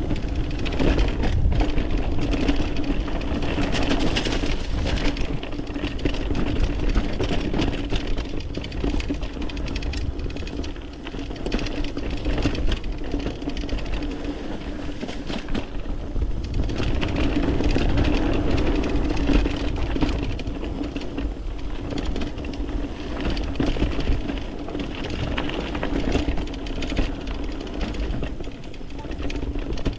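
Mountain bike ridden down a dirt trail: tyres rumbling over rough ground, with the bike rattling and clicking over bumps and a steady buzz running underneath, louder on the rougher stretches.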